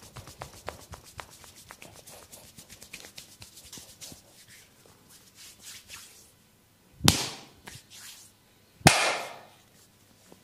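A masseur's hands working on the body: a quick, thinning run of light clicks, then two loud sharp slaps about two seconds apart.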